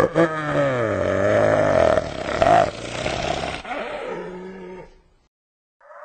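Striped hyena giving a long drawn-out call that falls in pitch over the first second, then holds and shifts to a lower tone before stopping about five seconds in. A second, higher call begins just before the end.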